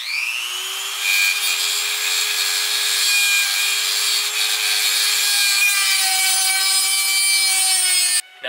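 Small cordless power tool spinning up and cutting into the stripped head of a bicycle disc-brake rotor bolt. It holds a steady whine with a grinding hiss and stops suddenly shortly before the end.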